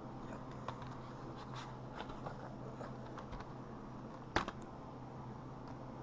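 Plastic DVD case being handled and opened: small scrapes and clicks, with one sharper snap about four seconds in as the case comes open. A steady low hum runs underneath.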